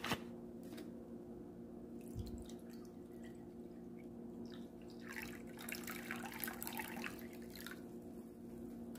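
Apple cider vinegar poured from a plastic bottle into a cup, a faint liquid splashing that is clearest from about five seconds in and stops shortly before the end.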